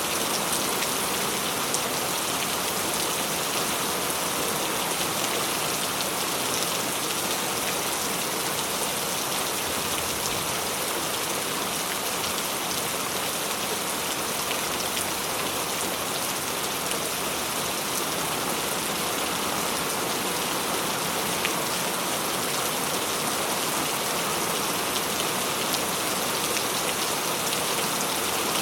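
Steady rain falling, a continuous even hiss dotted with small drop ticks, with no thunder or lulls.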